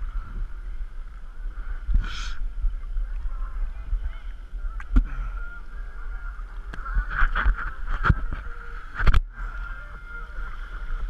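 Lake water lapping and slapping around a head-mounted camera at water level, with several short sharp splashes against it, over a steady high whine and a low rumble.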